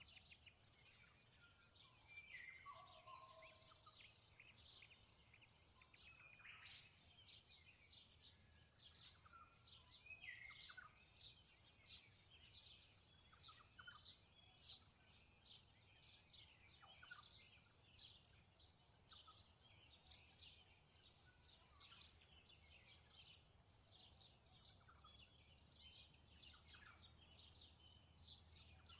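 Faint open-field ambience: birds chirping and calling in many short notes throughout, over a steady high whine and a low rumble of wind.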